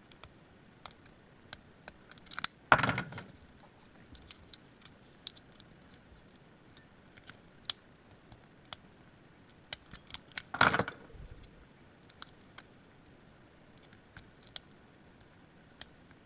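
Lock picks and a tension wrench working 4-pin Master Lock 141 padlocks, giving scattered light metallic clicks and ticks. Two louder metal handling clatters come about 3 seconds and 11 seconds in.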